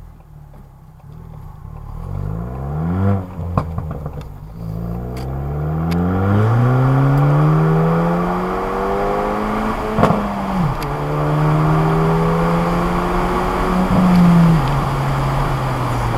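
Ford Fiesta ST's turbocharged engine with a Stratified flash tune pulling hard through the gears, heard through the dashcam's microphone. The revs rise in long climbs and drop at each gear change, and the exhaust gives sharp crackles and pops: a few near the start, one loud crack about ten seconds in, and another near the end.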